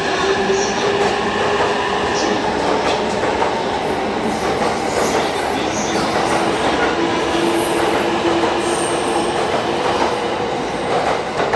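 Electric train at a station platform: a steady hum of motors and equipment over continuous rail and wheel noise, with a few faint clicks near the end.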